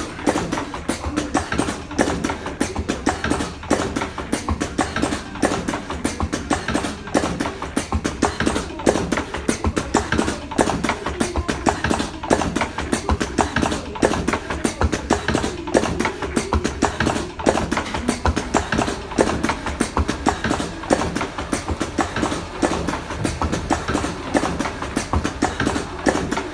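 Automatic slim-cigarette rolling machine running, its mechanism clacking rapidly and without pause as it fills and rolls cigarettes.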